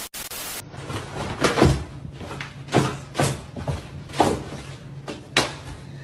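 A brief burst of TV static, then about six dull thuds at uneven intervals: a head knocking back against a wooden door.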